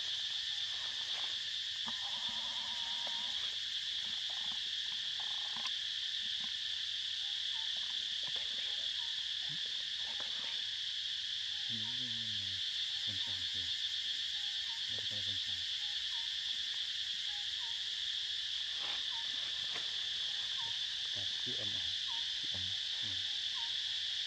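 Steady, unbroken high-pitched drone of a forest insect chorus.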